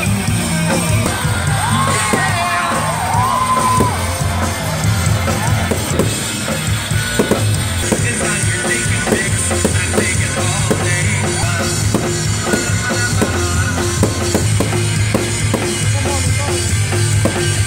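Live rock band playing: drum kit keeping a steady beat under sustained bass notes and electric guitar.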